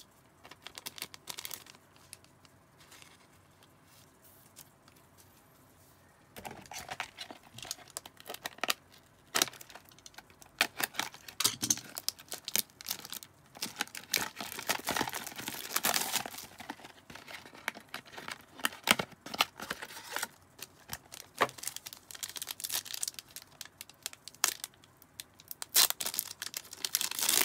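Trading-card packaging being torn open by hand: a cardboard box and foil card packs, the foil ripping and crinkling in irregular bursts. The first six seconds hold only a few light handling clicks before the tearing starts.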